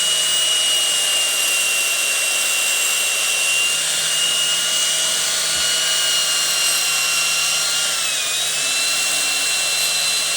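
Angle grinder running and cutting into ceramic tile: a loud, steady high whine over a grinding hiss, its pitch dipping briefly about eight seconds in as the blade loads.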